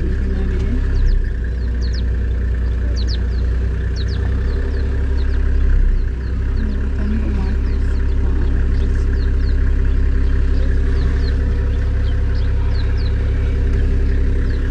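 Toyota Land Cruiser safari vehicle's engine running steadily. Many short, high chirps sound over it.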